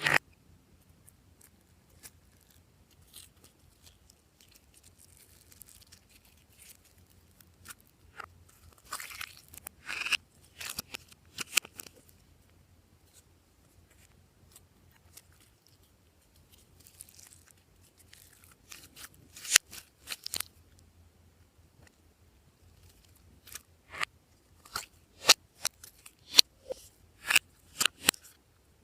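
Glossy slime being worked by hand, giving sharp pops and clicks in scattered clusters, with a quick string of loud pops near the end.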